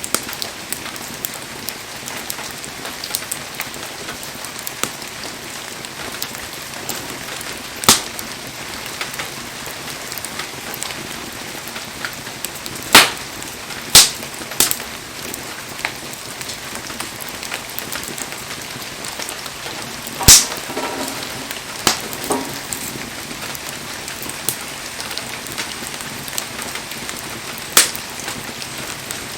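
Firewood burning in a bonfire, crackling steadily with small ticks and about five sharp, loud pops.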